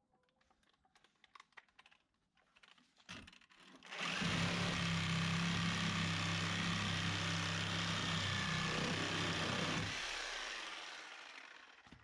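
Light taps and clicks of handling, then an electric power tool starts, runs steadily for about six seconds and winds down as it is switched off.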